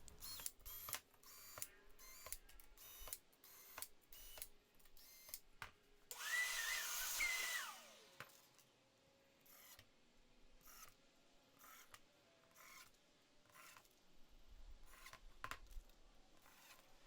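A cordless drill/driver runs for about two seconds, whining up and then winding down, as it drives a small screw into the aluminum T-track. Light clicks and taps of handling the track and screws come before and after it.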